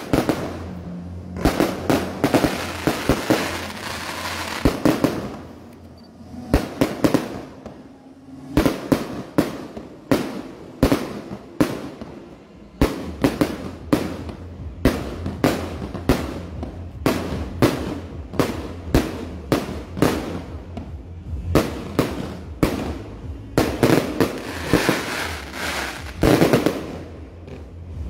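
Aerial fireworks bursting overhead in a rapid, irregular barrage of loud bangs, dozens of them, thickest a couple of seconds in and again near the end.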